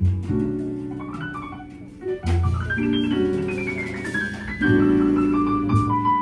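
Live jazz piano playing over low bass notes, with a quick stepwise run coming down through the upper notes around the middle.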